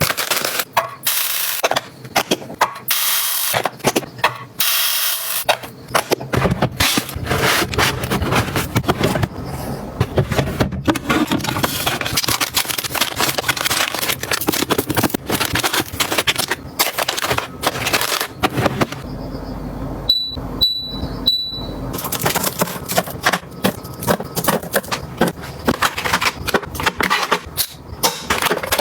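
Continuous clatter of items being handled: quick clicks, taps and rustling as things are picked up and set down. About twenty seconds in, three short high electronic beeps sound in a brief lull.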